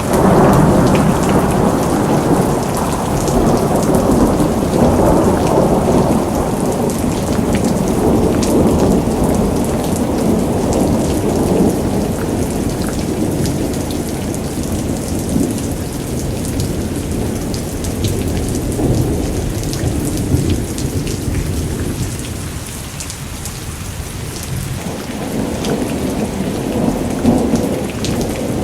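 Steady rain with a low, rolling rumble of thunder that swells and eases slowly.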